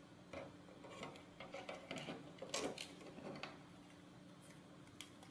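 Faint clicks and light handling noises of long metal bolts, plastic motor mounts and a small yellow gear motor being fitted against a robot-car chassis plate, mostly in the first three and a half seconds, with one more click near the end.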